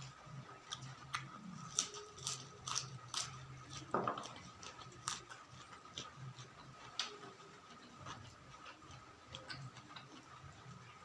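Close-up eating sounds: a string of sharp crunches and wet mouth clicks from someone chewing raw vegetables and other food, with a louder smack about four seconds in. A faint steady hum runs underneath.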